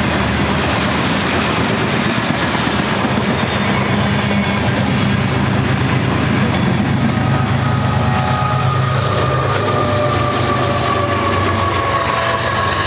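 Freight train of covered grain hopper cars rolling past with steady wheel-on-rail rumble and clickety-clack over the rail joints. About six seconds in, the rear pair of GE diesel distributed-power locomotives passes, adding deeper engine noise and a high whine that slides slowly down in pitch as they move away.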